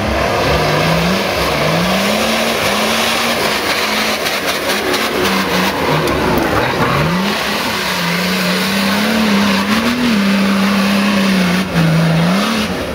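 Nissan Patrol 4x4 engine revving hard under load on an off-road course, its pitch rising and falling as the driver works the throttle.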